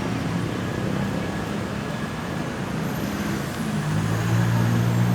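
Road traffic: motor vehicle engines running over general road noise, with a deeper engine hum growing louder about four seconds in.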